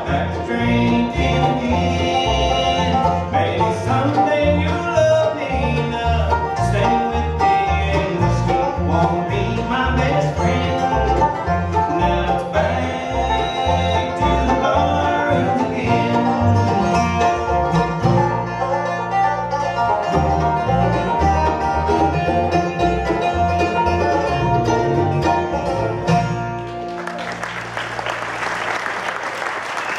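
A bluegrass band plays live, with banjo, acoustic guitar, mandolin, dobro and upright bass, to the end of a song. The music stops about 27 seconds in and the audience breaks into applause.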